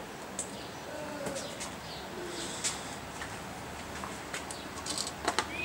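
Light clicks and knocks of cables, connectors and a small RF power meter being handled on a workbench, coming more often near the end. A bird coos faintly in the background.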